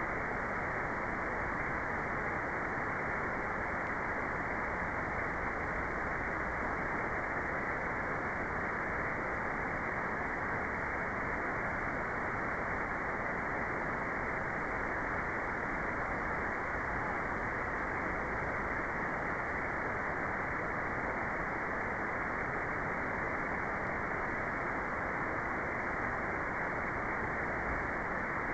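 Steady, even white noise with the highs cut away, so it comes across as a dull, constant hiss with no change in level.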